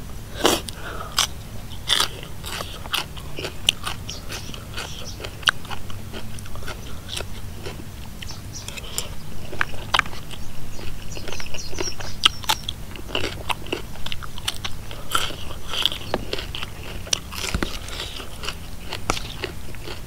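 A person biting and chewing crunchy raw vegetables, close to the microphone, with irregular sharp crunches throughout.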